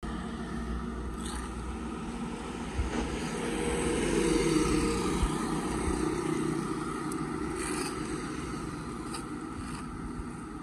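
Road traffic passing on a wide road: motorbikes and a truck, swelling to its loudest a few seconds in as a vehicle goes by. A few short scrapes and rustles of dry leaves and debris being pulled out of a kerbside drain by hand.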